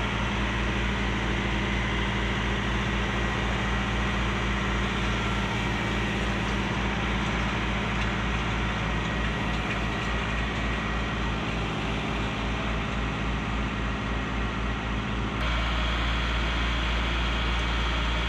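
John Deere 4066R compact tractor's diesel engine running steadily with a low throb. About fifteen seconds in the engine sound becomes fuller and louder, as it idles close by.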